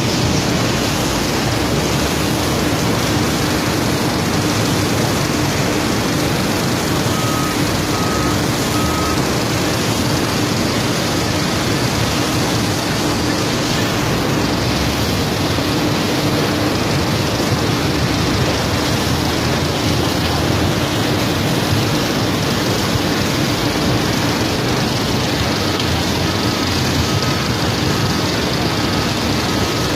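Sand washing machine running steadily: a loud, even mechanical noise with a constant hum.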